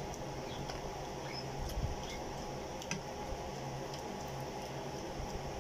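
Eating by hand: scattered small clicks, squeaks and smacks of cooked shrimp being peeled and chewed, over a steady background hiss.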